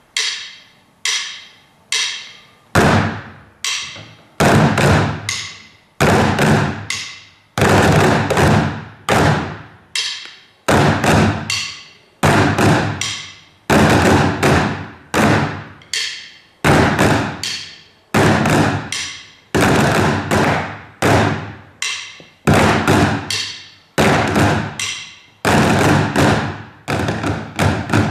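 Percussion ensemble playing a steady rhythm: a few lighter, thinner strikes at first, then from about three seconds in, heavy deep drum hits with an accented stroke about every one and a half seconds and lighter strokes in between.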